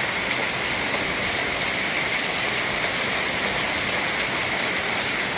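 Hailstorm: heavy rain and hail pelting a rooftop, a steady dense hiss with scattered faint ticks.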